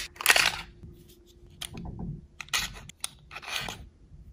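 Clicks, scrapes and rattles of an airsoft gas blowback pistol being field-stripped: the slide drawn off the frame and the recoil spring guide rod pulled out of the slide. A louder click comes near the start, then irregular lighter clicks.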